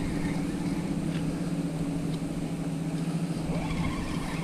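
A small boat's motor running with a steady, even hum.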